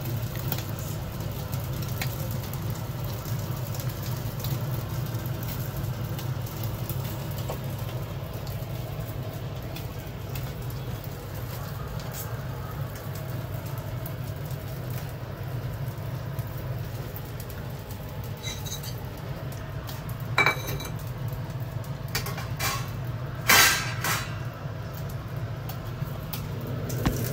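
Gas stove burner running under a wire grilling rack, a steady low rumble. Two sharp metal clinks come near the end, about three seconds apart.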